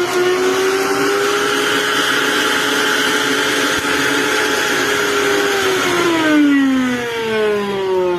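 Mixer grinder's motor running at a steady high-speed whine with its carbon-brush wiring just re-connected. About six seconds in, the whine falls steadily in pitch as the motor slows down.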